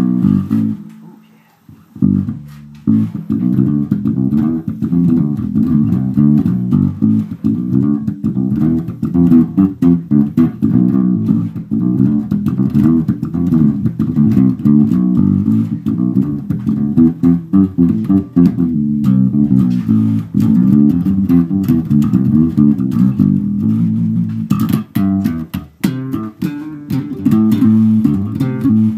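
Warwick electric bass guitar played solo in a quick, busy funk line of low notes. It pauses briefly about a second in, and there are sharper, percussive notes near the end.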